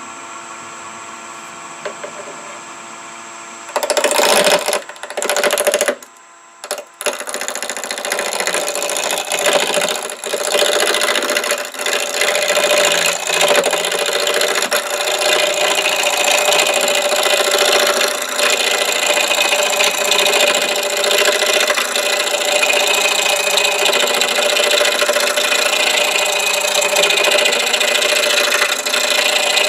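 Wood lathe running at about 850 rpm with a steady motor hum; from about four seconds in, a roughing gouge cuts into the spinning wooden blank, a continuous rough scraping and rasping that drops out briefly around the sixth to seventh second and then carries on.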